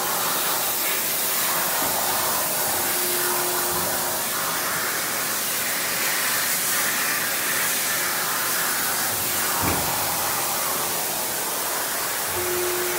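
Guifil PE2560 CNC hydraulic press brake running, its hydraulic pump and motor making a steady rushing hum. A short higher tone sounds twice, about three seconds in and near the end, and there is a single knock about ten seconds in.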